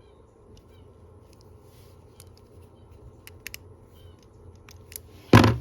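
Small metallic clicks and taps of a Leatherman Wave multitool being handled while a thumb stud is pressed into its blade, then one short, loud burst of noise near the end.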